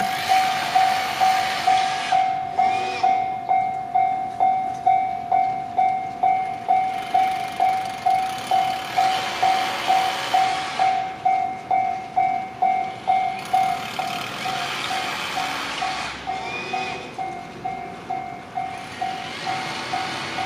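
Railway level-crossing warning alarm ringing, a single clanging tone struck about twice a second without a break, with a rushing noise that swells and fades several times behind it.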